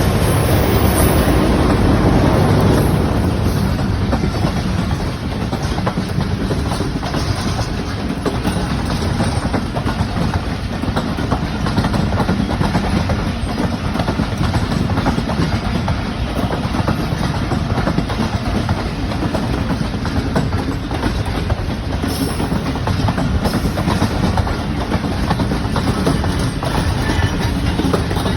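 Train running on the rails: a continuous heavy rumble with the rapid clickety-clack of wheels over rail joints, loudest in the first few seconds.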